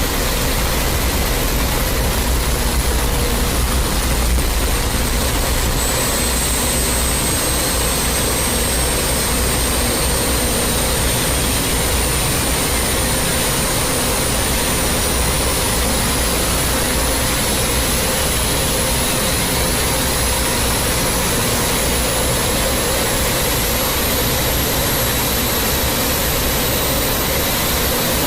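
Loud, steady hissing roar that fills every pitch, with thin whistling tones sliding down and then back up through it.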